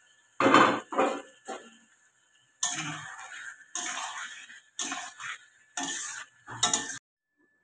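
Metal spatula scraping and stirring in a metal kadai, turning fried potatoes through thick chicken kosha masala, in about eight separate strokes. It cuts off suddenly near the end.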